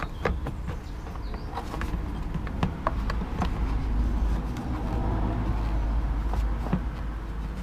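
Scattered light plastic clicks and knocks as a replacement fog light is twisted and pushed into its opening in a Mercedes SLK's front bumper, over a steady low rumble that swells in the middle.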